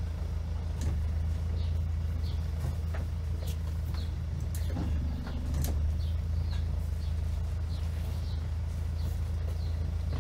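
A boat engine running at idle in a steady low drone, with short high bird chirps every second or so and a few light knocks.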